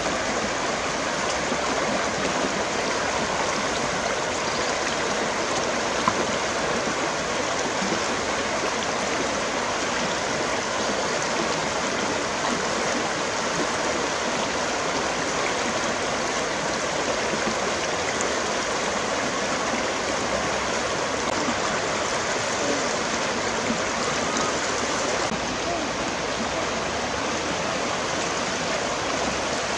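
Shallow, fast river rushing steadily over rocks and stones, with a single brief click about six seconds in.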